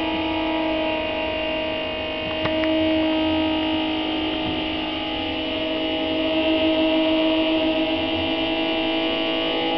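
Electric guitar drone through effects: several steady, layered held tones with no strumming or rhythm, swelling slightly in the second half.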